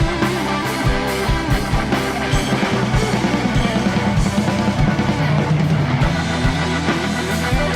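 Instrumental rock music with a steady drum kit beat, bass and electric guitar.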